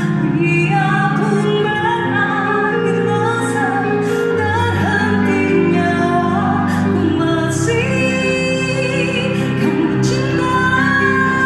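A woman singing a Malay ballad live with a band, holding long notes over sustained accompaniment; a deep bass line comes in about four seconds in. Heard through a phone's microphone from among the audience in a large hall.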